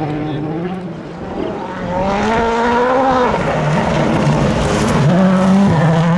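Rally car's engine at speed on a stage, revving up about two seconds in, then falling away and stepping through gear changes as it passes.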